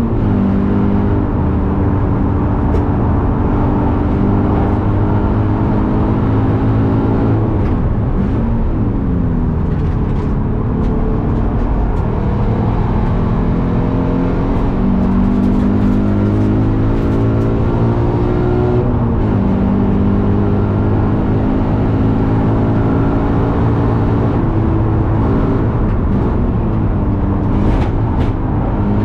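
Toyota 86's naturally aspirated 2.0-litre flat-four engine driven hard on a racing lap, heard from inside the cabin. Its pitch climbs through the revs and drops at each gear change, falling away and sweeping back up a few times as the car brakes and downshifts for corners.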